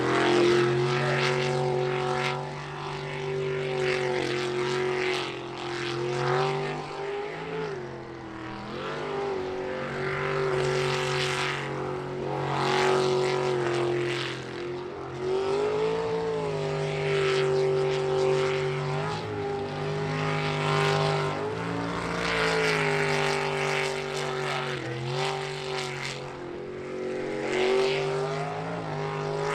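Jet sprint boat engine running hard at high revs around the course. Its pitch holds steady and dips briefly several times.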